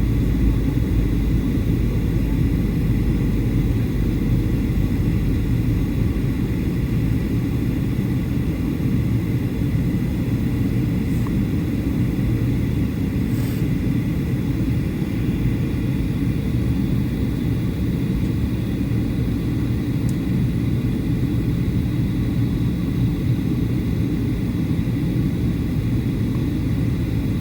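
Steady low cabin rumble inside a Boeing 737-800: engine and airflow noise, even throughout.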